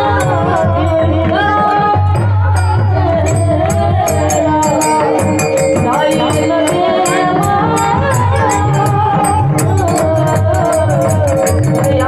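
Indian devotional song in raga Bhairavi: a voice singing an ornamented, wavering melody over steady drone tones, with a quick, even rhythm of small percussion strikes and low drum beats.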